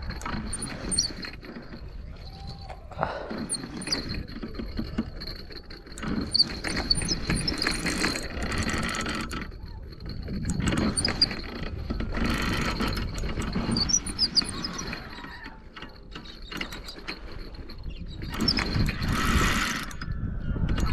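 Fishing reel being worked with a ratcheting, geared whirr that comes in spells of a second or few, stopping and starting, as a hooked carp is fought and reeled in.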